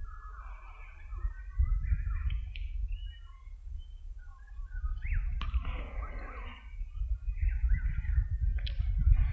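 Several birds chirping and singing outdoors, with quick rising whistled notes now and then, over a low, gusting rumble of wind on the microphone.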